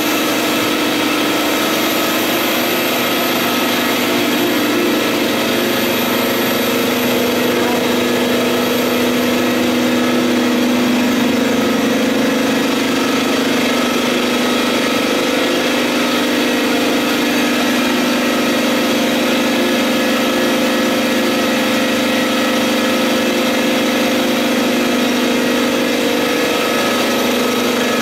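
Vutek grand-format UV-curable printer running: a steady mechanical drone with a low hum and a few constant tones, unchanging in level.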